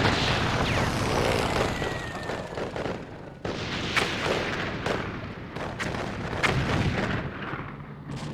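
Battlefield sound effect: gunshots and booming blasts over a continuous rumble, with sharp blasts at the start and again about three and a half seconds in, then several more shots. A faint falling whistle sounds about two seconds in.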